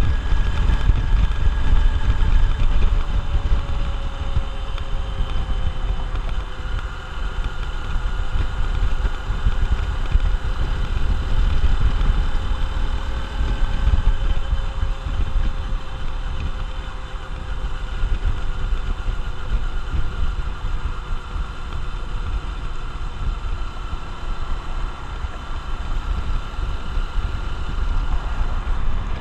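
Honda XR150L's single-cylinder four-stroke engine running steadily, under a dense low rumble, with faint tones that drift slowly in pitch.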